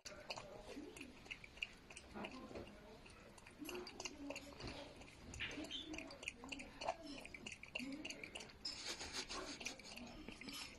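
Raccoon lapping water from a glass mug: quiet, irregular wet tongue clicks and slurps, thickening into a quick run of laps near the end.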